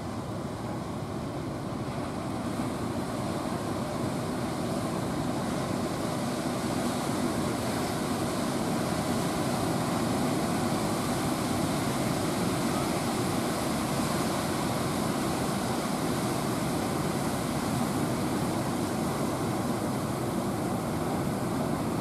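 Rough sea surf washing and breaking, a steady rushing noise that swells a little over the first several seconds and then holds.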